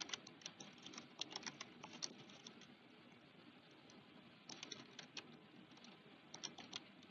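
Faint typing on a computer keyboard: a run of keystrokes, a pause of about two seconds, then two shorter runs of keystrokes.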